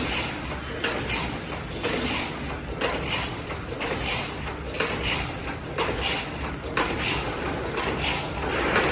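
Hexagonal wire mesh weaving machine running, a steady mechanical clatter with a rhythm that repeats about once a second.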